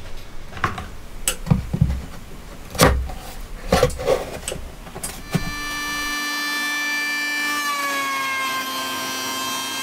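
Knocks and clicks of tools and wooden parts being handled, then, about five seconds in, a Ryobi ML-83S electric hand planer set in a benchtop jointer jig starts and runs with a steady high whine. Its pitch dips slightly near eight seconds, as a board is fed across the cutter.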